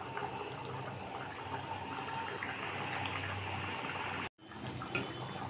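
Chicken curry boiling in a kadai over a gas flame: a steady bubbling and crackling of the simmering gravy, broken by a brief dropout about four seconds in.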